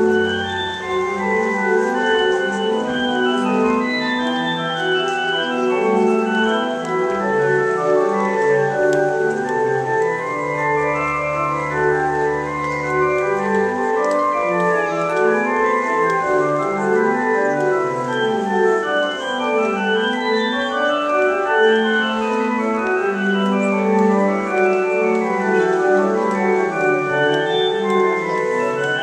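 Organ music with several parts of sustained notes moving stepwise at once, and a deep bass line coming in about ten seconds in.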